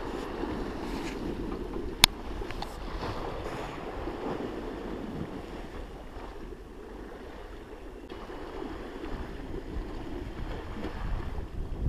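Wind buffeting the microphone over the wash of waves against a sea wall, with one sharp click about two seconds in.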